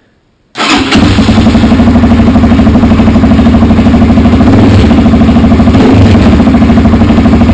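Irbis TTR 250R's single-cylinder four-stroke engine starting from cold without any throttle. It catches abruptly about half a second in and settles straight into a steady, loud idle.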